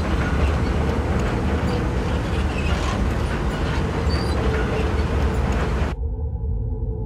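Combine harvester at work: a steady mechanical rumble with a rush of noise over it. It cuts off abruptly about six seconds in, leaving a low steady hum.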